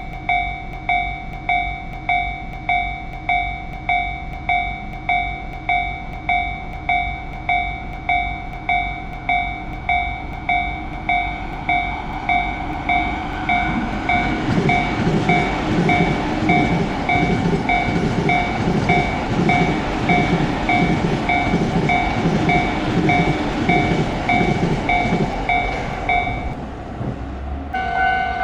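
Japanese level-crossing alarm ringing steadily, a little under two strikes a second. About thirteen seconds in a train passes through the crossing, wheels clacking rhythmically over the rail joints, and the alarm stops just before the train has cleared.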